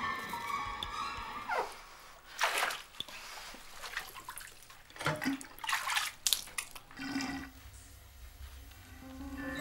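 Water sounds in a bathroom: several short bursts of splashing and running water.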